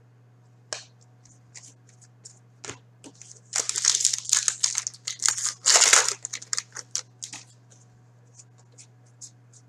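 Foil trading-card pack wrapper being torn open and crinkled, with the cards inside handled between the fingers: scattered short rustles, and two louder bursts of crinkling about three and a half and six seconds in.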